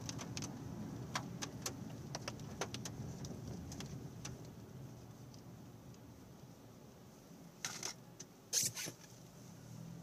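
Road noise inside a moving car: a low rumble of the tyres on the road, with scattered light clicks and ticks throughout. About eight seconds in, two short, louder rustling scrapes stand out.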